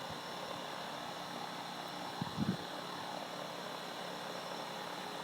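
Steady faint hum and hiss with a few thin steady tones in it, and one brief low thump about two seconds in.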